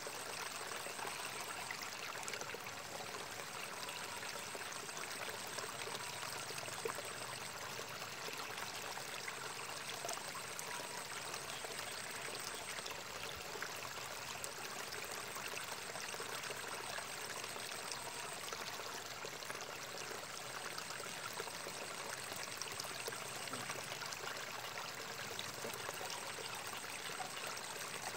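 Steady running water, trickling and splashing without a break.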